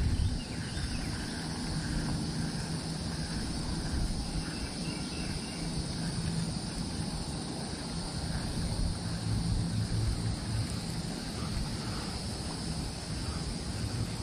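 Outdoor ambience on open water: a steady low wind rumble on the microphone with a continuous high insect buzz.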